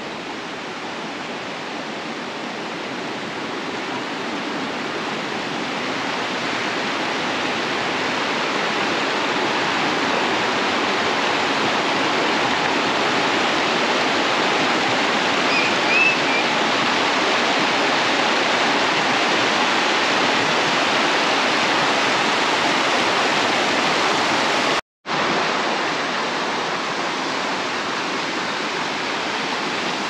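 Rushing water of the Pochtenfall mountain waterfall, a steady dense noise that grows louder over the first ten seconds. It cuts out for a moment about 25 seconds in, then carries on a little quieter.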